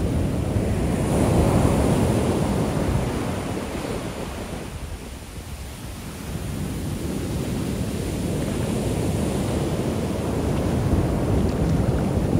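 Ocean shore break: waves crashing and washing up the beach. A big wave breaks about a second in and fades by the middle, then the next one builds and breaks near the end.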